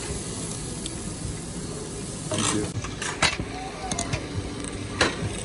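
Meat sizzling on a tabletop Korean barbecue grill, a steady hiss, with a few sharp clinks of metal utensils from about the middle on.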